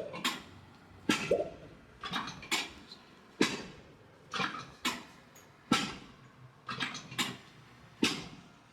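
A series of sharp slaps or knocks, about one a second and sometimes doubled, each with a short ringing tail, with a brief voice-like sound now and then.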